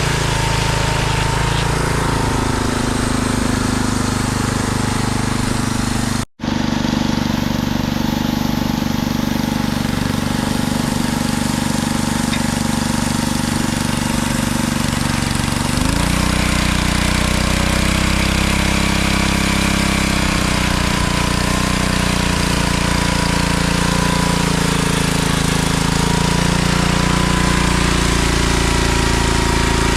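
Homemade sawmill's motor running steadily, its note shifting about halfway through. The sound drops out for an instant about six seconds in.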